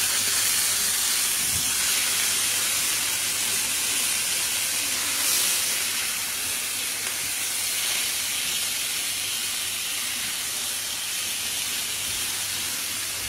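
Muru fish pieces and curry leaves sizzling in coconut oil on a large flat iron griddle (tawa): a steady hiss, briefly louder about five seconds in.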